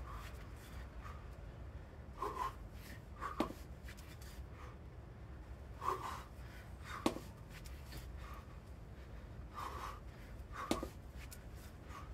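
A person breathing hard during a workout set: a forceful exhalation about every three to four seconds, each followed about a second later by a sharp knock.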